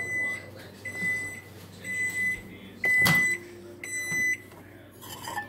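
Microwave oven finishing its cycle: its running hum stops and it beeps five times, about once a second, at the end of warming syrup. A sharp knock comes midway through the beeps.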